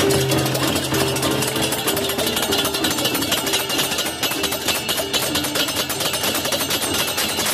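Balinese baleganjur gamelan playing a fast, loud passage: rapid, dense clashing of cymbals over a pitched gong-chime melody.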